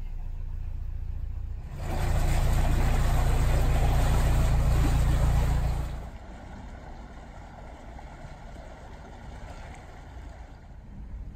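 Narrowboat diesel engine running steadily. It is much louder for about four seconds from about two seconds in, while the boat passes under a stone bridge arch, then it falls to a fainter, steady engine hum.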